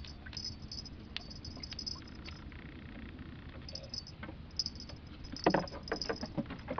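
Irregular clicks and rattling from fishing tackle and a spinning reel being handled in a wooden boat, with a quick cluster of louder knocks about five and a half seconds in.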